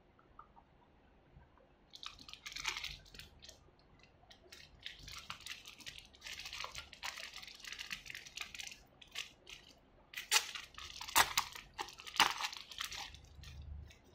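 Clear plastic packaging film crinkling and crackling in the hands while a small plastic part is unwrapped. It starts about two seconds in and comes in stretches, with the sharpest crackles near the end.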